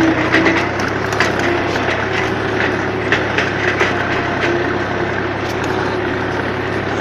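Tractor engine running steadily while a rear-mounted rotary tiller churns the soil, with irregular clacks and knocks of clods striking the tiller.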